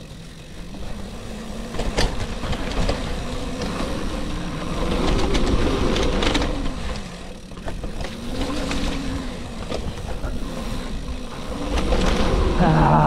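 Bicycle ridden over a gravel road: a steady rumble of wind and rolling tyres, with scattered sharp clicks and knocks.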